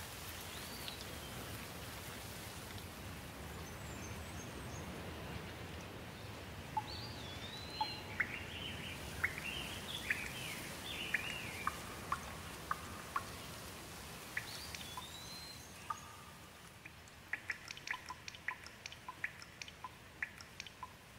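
Steady rain falling, with birds chirping over it. Near the end the rain thins and single drops tap sharply, several a second.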